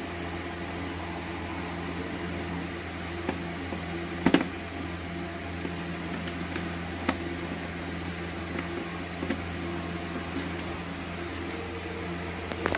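Small clicks and taps of a screwdriver on the terminal screws and plastic body of a three-pole miniature circuit breaker, with a louder double click about four seconds in. Under them runs a steady low hum.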